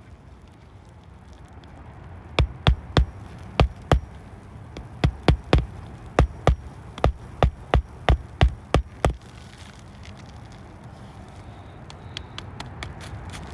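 Hammer driving roofing nails to fasten a replacement asphalt shingle: about seventeen sharp strikes over some seven seconds, in short runs of two or three blows with brief pauses between.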